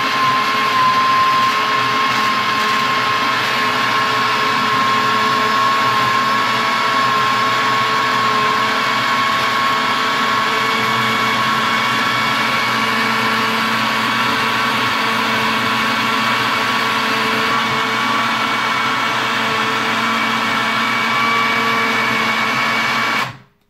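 Moulinex countertop blender running steadily, blending strawberries and lemon juice, a constant motor whine; it cuts off suddenly near the end as it is switched off.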